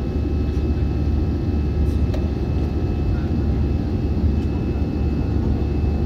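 Steady low cabin noise of an AirAsia Airbus A320 climbing after takeoff: jet engines and rushing air heard from a window seat beside the engine, with a few faint steady tones above.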